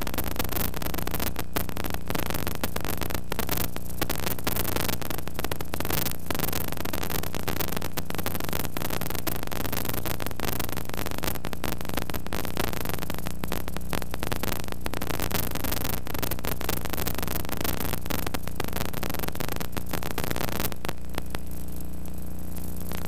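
Steady static hiss, thick with fine crackling, over a low electrical hum, with no game sound or commentary. Near the end the crackle thins out.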